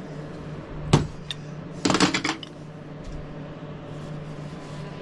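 Metal clinking and knocking as metal tool parts are handled: one sharp knock about a second in, then a quick rattle of clinks around two seconds, over a steady low hum.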